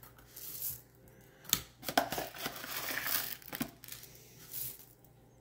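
Packaging crinkling and rustling in a few bursts over a couple of seconds, with some sharp clicks.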